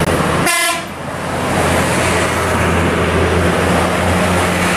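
Vehicle sound effect: one short horn toot about half a second in, then a steady low engine rumble with hiss.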